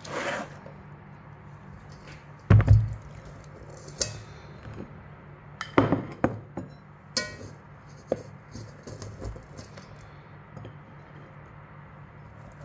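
Rice being served into a ceramic bowl with a plastic rice paddle: a loud dull thump about two and a half seconds in, then sharp clinks and knocks of the paddle against the bowl, with soft scraping and handling noise between them.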